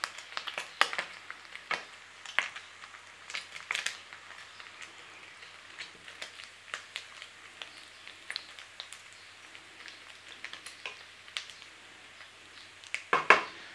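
Cubed smoky bacon sizzling in a frying pan with irregular sharp pops and crackles as its fat renders out, while a wooden spatula is pushed around the pan. The pops are busier in the first few seconds, with a louder cluster near the end.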